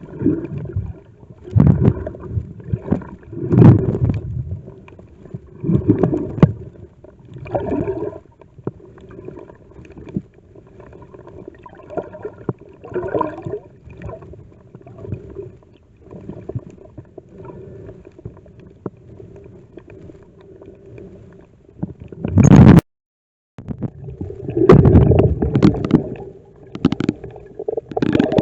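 Muffled underwater sound from a camera held below the surface while snorkelling: irregular gurgling and bubbling swells over a low rumble and a steady hum. The sound breaks off briefly a little after two-thirds of the way through.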